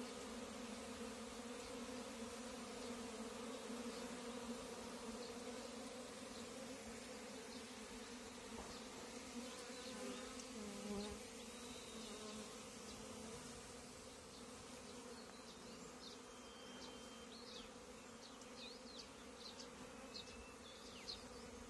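Steady buzzing hum of Indian honey bees (Apis cerana indica) flying around their hive. A few brief high chirps come in over the last few seconds.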